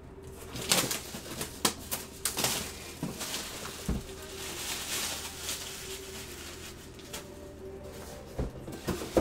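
Hands handling a sealed cardboard collectibles box and working at its seal: irregular rustling, scraping and clicking of cardboard and wrapping, with a few light knocks of the box against the table.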